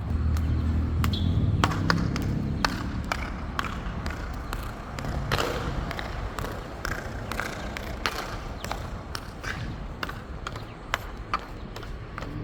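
Metal heels clicking on a hard floor in walking steps, about two a second, with an echo. A low rumble sits under the first couple of seconds.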